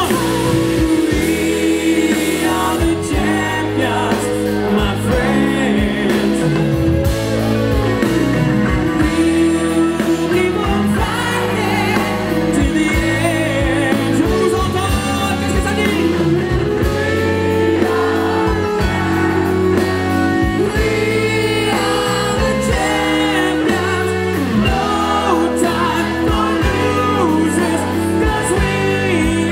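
Music with a singing voice over steady bass and chords, running without a break.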